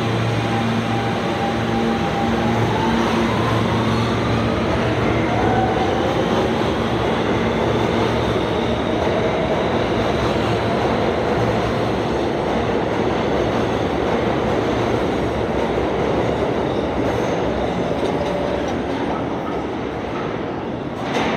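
R160 subway train with Siemens propulsion pulling out of the station: a steady hum, then the motor whine rises in pitch as it accelerates, over heavy rail running noise that fades slowly as the train goes into the tunnel. A sharp knock right at the end.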